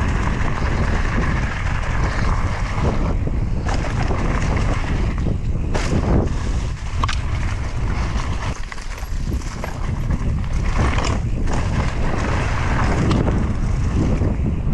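Wind rumbling on the microphone of a mountain bike moving fast down a dirt trail, with tyres rolling over the dirt. Sharp clicks and rattles from the bike over bumps break through several times.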